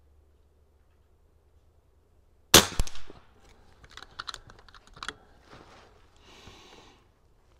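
A single shot from an unregulated .22 PCP air rifle, the Niksan Tacto: one sharp crack about two and a half seconds in. It is followed by a run of small clicks and knocks over the next two seconds as the rifle is handled, and a short soft hiss near the end.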